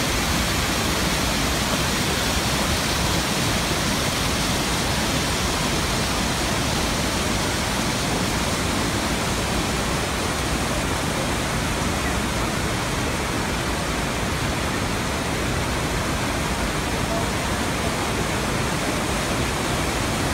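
The Rhine Falls: a broad river waterfall and its rapids, water rushing over rock in a loud, steady, unbroken roar.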